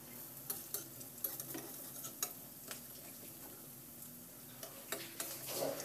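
Dal pakoras frying in oil on low heat in an aluminium kadai, a faint steady sizzle. A metal spatula scrapes and clicks against the pan several times as the pakoras are turned over. A brief louder sound comes just before the end.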